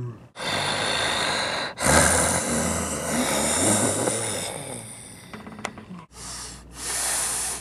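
Man imitating an elephant squirting water with his mouth: hissing, spraying blows through the lips, the long middle one with a rough throaty rumble under it, then two shorter spraying blasts near the end.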